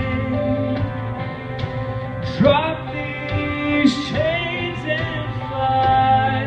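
A male singer's pop-country ballad performed live into a handheld microphone over instrumental accompaniment, heard through a PA: long held notes with a few sliding vocal phrases, about two and a half and four seconds in.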